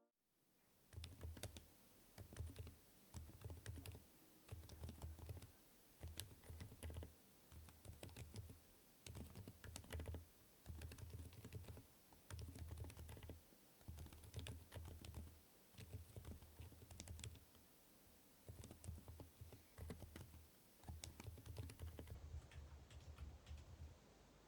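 Typing on a Hall-effect keyboard fitted with Outemu Silent Magnetic Peach switches, PBT Cherry-profile keycaps and an aluminium case: quiet, damped keystrokes in bursts of quick typing with short pauses between them.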